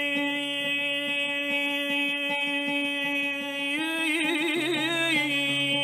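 Man's voice holding one long, drawn-out note of an Arabic mawwal. About four seconds in it lifts slightly into a quick wavering ornament, then settles back. Faint oud plucks sound underneath.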